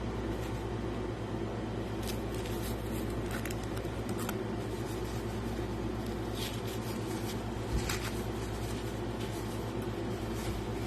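Wrapping being pulled off a gem specimen by hand: short rustles and crinkles of packing material, five or so of them, over a steady low hum.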